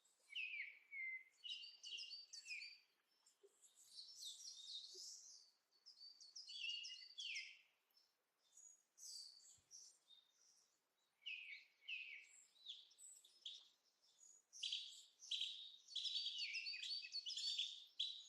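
Faint chirping of small songbirds, in short runs of quick high notes, busiest near the end.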